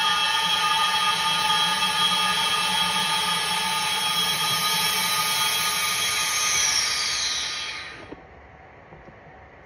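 A steady drone of several held tones that fades out smoothly about eight seconds in, leaving a faint hum.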